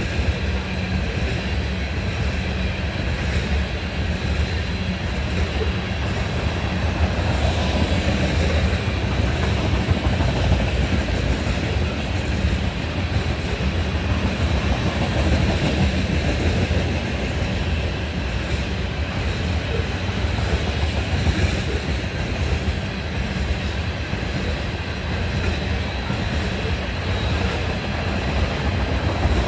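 Freight train of tank cars rolling past: a steady rumble of steel wheels on rail with clickety-clack from the rail joints and a faint, steady high whine above it.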